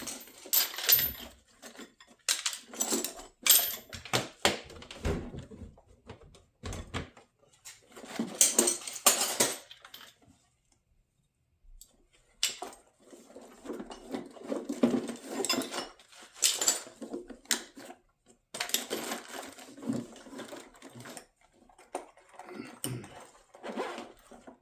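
Metal hand tools clinking and rattling as a tool bag is rummaged through, in irregular bursts with a short pause about halfway.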